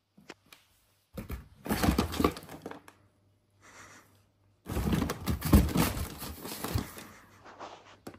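Cardboard box scratching and rustling in two spells, the second longer, as a kitten claws and scrambles at it.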